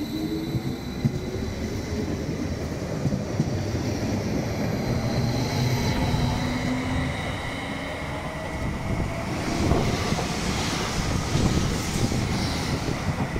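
Electric multiple-unit trains running through a station: a rumble with a whine that rises in pitch as a train picks up speed, then a second train running past close by near the end with a loud high hiss and a touch of wheel squeal.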